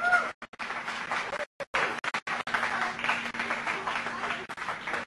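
A crowd applauding, with voices mixed in, as the parachute opens; the audio cuts out completely for short moments several times.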